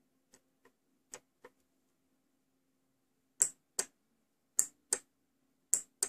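Relay on a 5 V relay module clicking on and off as its IN pin is touched and released with a jumper wire: five pairs of sharp clicks, the first two pairs faint and the last three loud, over a faint steady hum.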